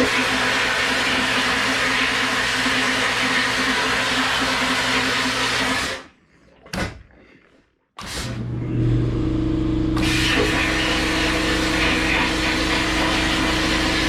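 Vapor blasting cabinet running, a steady hiss of the blast nozzle over the hum of the machine's pump as it cleans an engine case half. It stops for about two seconds near the middle, then starts again with a deeper hum.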